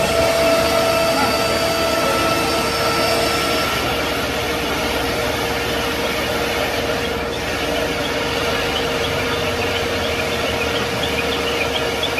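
Heavy diesel engines held at high revs under load, a steady, even engine note, as a truck stuck in soft soil is pushed from behind by a road roller. The effort does not free the truck.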